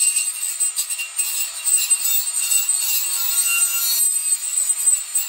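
Cordless right-angle power tool running at low speed, spinning a 3M Roloc bristle disc against an aluminum engine case to scrub off old gasket material: a steady high whine with scratchy rubbing.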